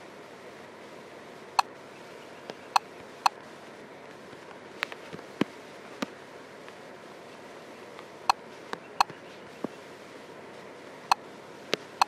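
A dozen or so sharp taps at uneven intervals, some with a short ringing tone, from a tablet's touchscreen being tapped while drawing and picking colours. A steady hiss lies underneath.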